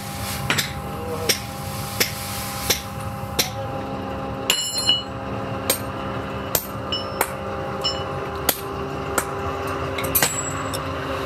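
Hammer blows on metal at a steady pace, about three every two seconds, some with a short high ring, over a steady machine hum.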